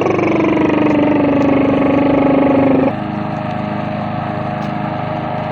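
Push lawn mower engine running steadily. For the first three seconds a louder tone rides over it: it starts high, drops in pitch, holds level, then cuts off sharply.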